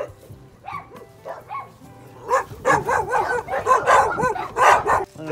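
Dog barking in a quick run of repeated barks, starting about two seconds in.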